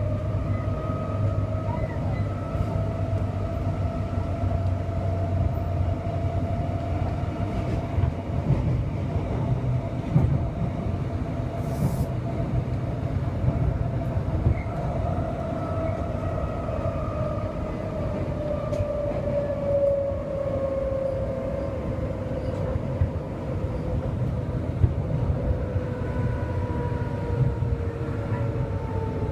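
Electric suburban train running, heard from inside the carriage: a steady rumble of wheels on track under a thin whine that drifts slowly up and then down in pitch, with a few faint clicks.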